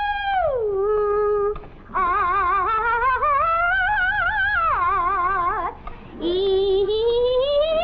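A woman's soprano voice vocalizing without words in an operatic singing exercise. A high note slides down and holds, then comes a warbling run with a wide, fast vibrato, and after a short break another slow upward slide. It is shrill, comically bad singing.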